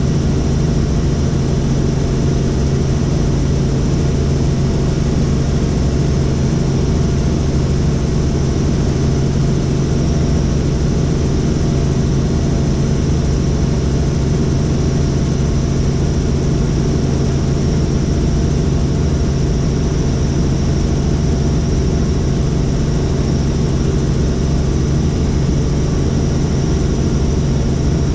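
Helicopter in flight: the steady, unchanging noise of its engine and rotor, dominated by a strong low hum.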